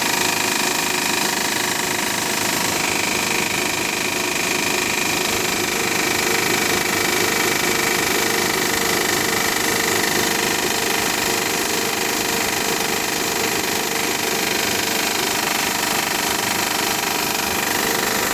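Honda Pilot's V6 engine running steadily with a fast, continuous rattle. This is a cold-start rattle that lasts only for about the first ten minutes of running.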